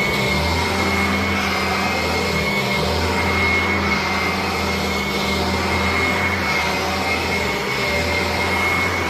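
Carpet cleaning machine's vacuum motor running steadily with a high whine; its low hum dips briefly every two to three seconds.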